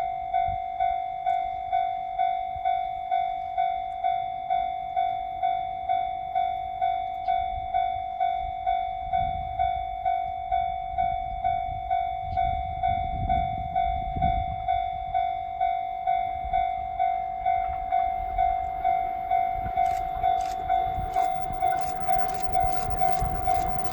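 Japanese level-crossing warning bell ringing steadily, about two dings a second. Near the end the rapid clicking of an approaching E653 series train's wheels over rail joints starts up under the bell.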